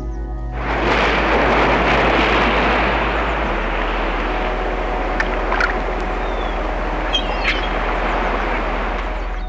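Sea water washing and splashing in a loud, steady surge that starts abruptly about half a second in, with a few short, sharp splashes in the second half. A low steady tone runs underneath.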